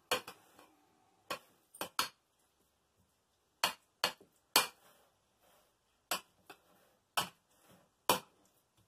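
A spoon knocking against a small glass container as guacamole is scooped and pressed into it: about a dozen sharp clinks and taps at irregular intervals, with quiet between them.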